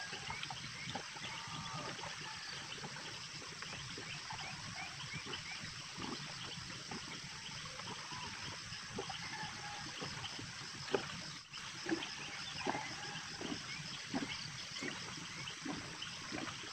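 Steady outdoor background hiss with many faint short animal chirps and a few soft knocks, the sharpest about eleven seconds in.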